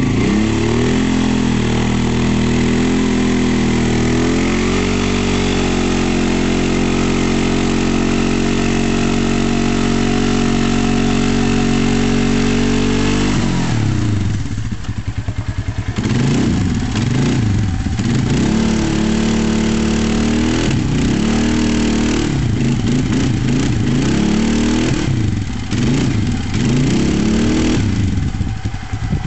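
Polaris Sportsman 450 ATV's single-cylinder engine held at high revs for about thirteen seconds, then revved up and down again and again, about once a second, as the quad is worked in deep mud while stuck.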